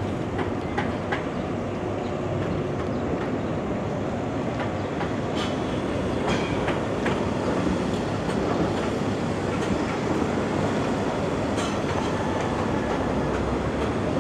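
Train running on its rails: a steady rumble with scattered sharp clicks of the wheels over the track.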